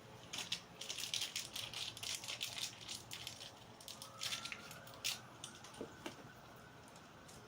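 Quick, irregular clicking and rattling of a screwdriver and screws as the doorbell mounting plate is screwed in, dying away about five seconds in.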